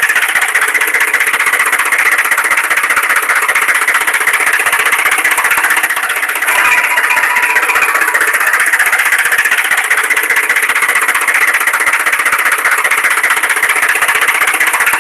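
A small engine-like motor running steadily with a fine rattle, thin and without any deep bass; its pitch shifts slightly about six seconds in.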